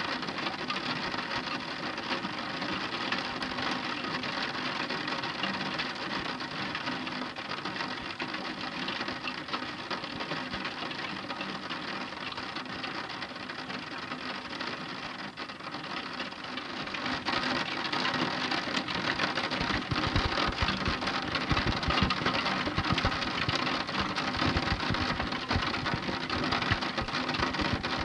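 Heavy rain falling as a dense patter of countless fine drop ticks, growing louder with added low thuds about two-thirds of the way through.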